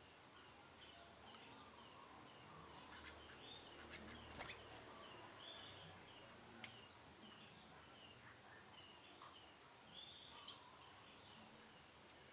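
Young canaries chirping softly: a steady run of short, repeated chirps, with a few sharp clicks among them.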